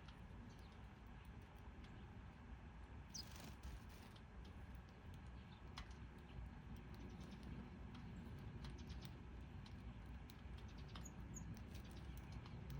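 Faint, sparse house sparrow chirps, a short high note about three seconds in and a couple more near the end, with scattered light ticks over a low background rumble.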